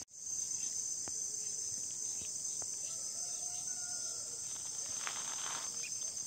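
A steady, high-pitched chorus of insects like crickets, shrilling without a break. A faint drawn-out tone joins in for about a second, three seconds in.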